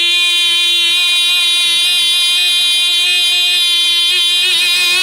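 The held 'boi' of the 'yeah boi' meme, one voice note stretched into a long steady tone, with a pitch wobble starting near the end.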